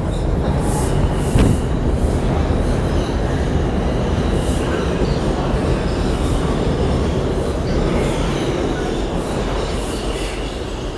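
R142-series New York City subway train pulling into the station alongside the platform, its wheels rumbling steadily on the rails with a sharp bang about a second and a half in and a faint wheel squeal.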